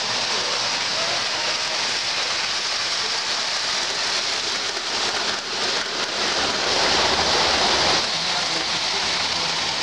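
O scale model trains running on two-rail track: a steady hiss and rumble of metal wheels rolling on the rails, with a brass steam locomotive passing close by mid-way.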